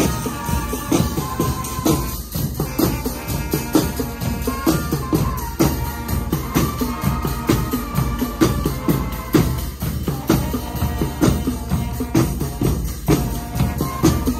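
Marching band playing on the march: brass holding a melody over a drumline of bass and snare drums beating a steady marching rhythm.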